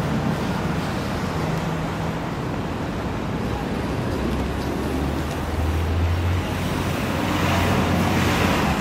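Traffic din at a busy Manhattan intersection: steady road noise from cars, trucks and buses. A low engine rumble grows louder from about halfway through, and a rush of passing traffic swells near the end.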